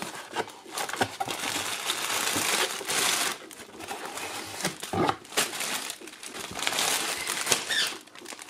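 Clear plastic garment bag crinkling and rustling in surges as a bagged jacket is lifted out of a cardboard shipping box and handled, with a few brief knocks.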